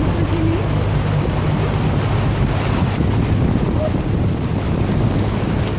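Floodwater churning and rushing along the side of a vehicle as it drives through the flooded road, over the steady low hum of its engine, with wind buffeting the microphone.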